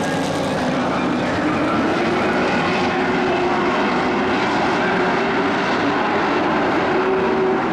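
Engines of several dirt-track race trucks running at speed around the oval. The level stays steady, with the notes of more than one engine mixed together.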